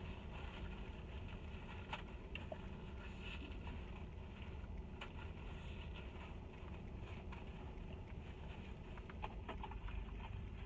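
Steady low rumble of a car cabin, with scattered soft clicks and taps from eating takeout with a fork.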